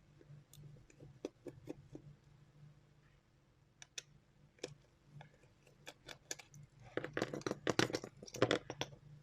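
Small plastic clicks and taps from a wireless computer mouse being handled and taken apart, with a denser burst of clicking and scraping about seven seconds in.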